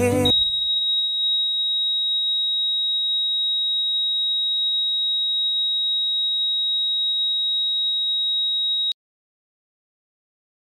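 A steady, high-pitched electronic beep tone used as a sound effect. It holds one pitch for about nine seconds, then cuts off abruptly into dead silence.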